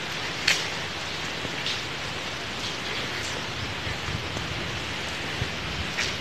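Steady hiss of wind and road noise from a moving vehicle, with a few light clicks, the sharpest about half a second in.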